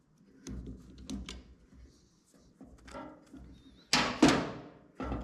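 Tools and metal parts being handled: scattered knocks and clicks, then two loud clanks about four seconds in and another just before the end.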